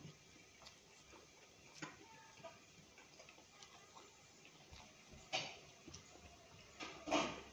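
Faint close-up eating sounds of rice and small fried fish eaten by hand: scattered clicks and smacks of chewing, with louder ones a little past five seconds and about seven seconds in.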